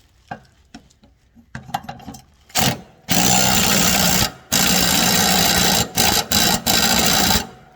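Impact driver hammering a mower blade bolt tight: after a few light clicks comes a short burst, then a run of about a second, then a run of about three seconds with brief stops near the end.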